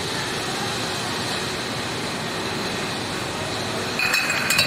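Brewery bottling line running: a steady hum and rush from the chain conveyors and bottle-handling machinery. About four seconds in it turns louder, with glass bottles clinking and a steady high whine.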